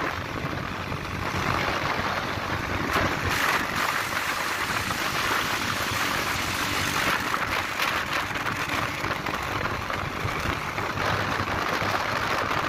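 Steady wind rush over the microphone of a motorcycle riding at road speed, with the motorcycles' engines running underneath.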